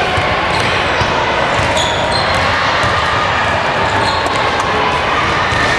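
Basketball being dribbled on a hardwood gym court during a youth game, with repeated bounces and brief high squeaks of sneakers, over the steady background noise of the hall.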